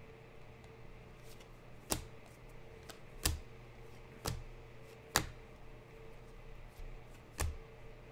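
Trading cards being flipped through by hand, a sharp snap each time a card is slid off the stack: five snaps at uneven intervals of about one to two seconds, over a faint steady hum.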